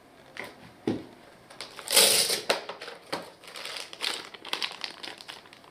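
Packaging being handled and crinkled, with a dull thump about a second in, a loud rustle about two seconds in, then a run of clicks and short rustles.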